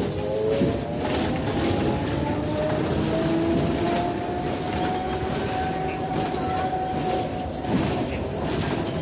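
Electric traction motor of a Scania K270 trolleybus whining as it accelerates. The pitch rises over the first few seconds and then holds steady, over a low rumble of the moving bus, with a few short knocks.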